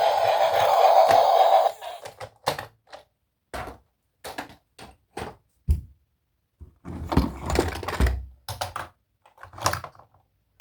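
Background music stops a couple of seconds in. It is followed by an irregular string of sharp clicks, taps and thunks from toy vehicles and packaging being handled, with a busier clatter around the middle.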